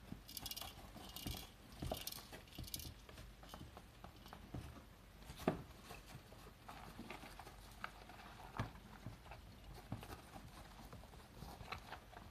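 Hamsters scurrying about in wood-shaving bedding in a plastic enclosure: four short rustling scratches in the first three seconds, then scattered light taps and clicks, the sharpest about five and a half seconds in.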